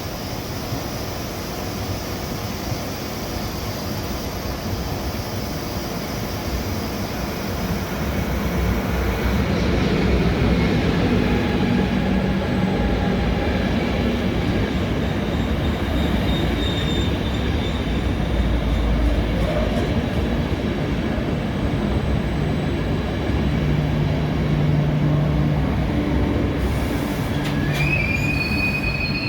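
Intercity train hauled by an ÖBB 1216 electric locomotive rolling into the station, the running noise of wheels on rail growing louder about eight seconds in. Near the end, high wheel squeal sets in as the train brakes to a stop.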